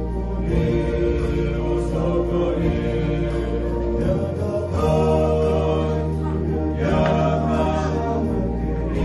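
A group of voices singing together in a slow, chant-like way, holding long notes that change every couple of seconds over a steady low tone.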